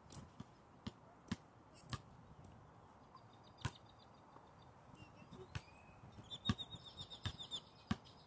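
Basketball dribbled on an outdoor court: a run of sharp, irregularly spaced bounces, coming quicker about six seconds in. A rapid series of high chirps sounds faintly at the same time.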